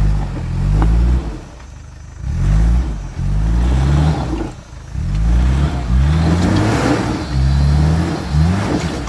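Off-road 4x4's engine revving in short repeated bursts, about eight times, the pitch climbing in each burst before it drops back.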